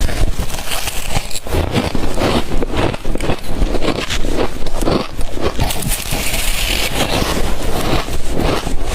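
Shaved ice being bitten and chewed close to the microphone: a rapid, continuous run of crisp crunches.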